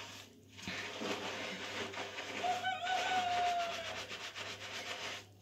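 Fingers scrubbing shampoo lather through wet, coiled hair, making a steady rubbing scrub. Near the middle, a thin, slightly falling tone lasts about a second and a half.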